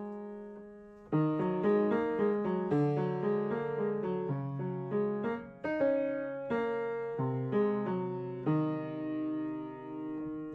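Solo piano music, a slow piece of chords and single melody notes struck and left to ring. It starts again about a second in after a brief pause.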